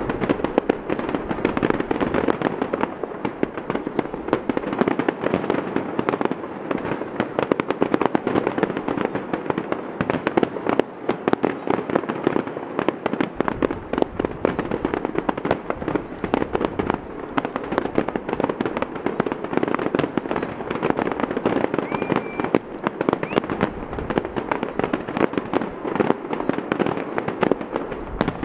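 Fireworks barrage: a continuous run of overlapping bangs and crackles as many shells burst in quick succession, with no pause.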